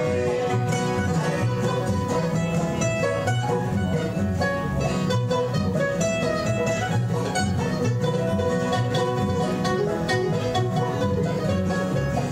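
Live acoustic bluegrass band playing an instrumental passage: banjo, acoustic guitars and mandolin picking over an upright bass keeping a steady beat.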